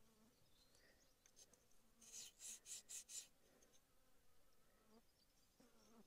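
A sharpening stone drawn along the hard-steel riveted knife blade of a New Holland 317 hay baler in a short run of about five faint scraping strokes about two seconds in, taking the burrs off the edge. Insects buzz faintly throughout.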